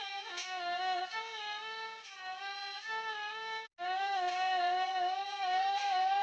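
Peking opera music led by a high bowed fiddle, the jinghu, playing a flowing melody with long held, wavering notes. It breaks off briefly a little past halfway.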